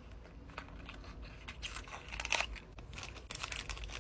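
Quiet scratchy rustling and small clicks as a miniature cardboard box is opened by hand and a crinkly wrapper is pulled open.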